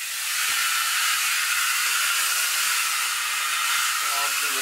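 Bathroom faucet opened with the water pump shut off, water and air rushing out of the spout in a steady hiss as the plumbing's pressure bleeds off.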